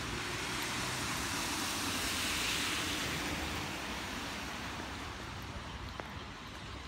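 Tyres of a passing car hissing on wet asphalt, swelling to a peak about two and a half seconds in and fading away, over the steady wash of rain. A single sharp click comes near the end.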